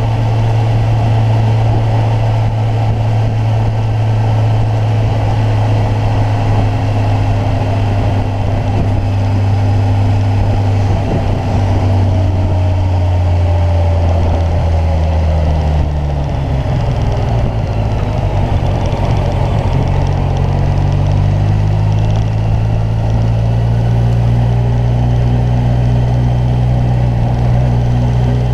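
Kawasaki Ninja 1000's inline-four engine running under way, a loud, steady engine note that shifts in pitch about halfway through and then settles again.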